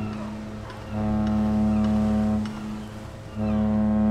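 Recorded deep horn sounding long repeated blasts, each about a second and a half with a short gap between, over faint bird chirps, played back by a small MP3 sound-generator module as a model-railway ambient sound.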